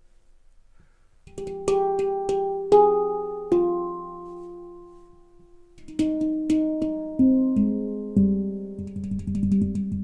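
Nitrided-steel handpan tuned to F Low Pygmy (9 notes) played by hand. A short run of rising notes is struck and left to ring and fade. From about six seconds in comes a busier run stepping down to the low notes.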